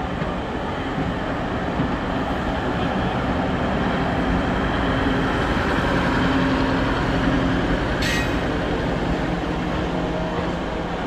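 DEMU passenger train running past: a steady rumble of wheels on rail that swells about six seconds in as the diesel power car goes by. A single sharp metallic click about eight seconds in.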